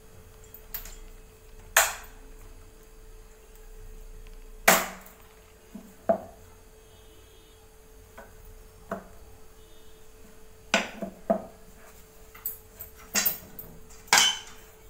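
Scattered wooden knocks and clacks from a rolling pin and a round wooden rolling board as dough is handled and rolling begins. The loudest knock comes a little before halfway, and a cluster of knocks follows near the end.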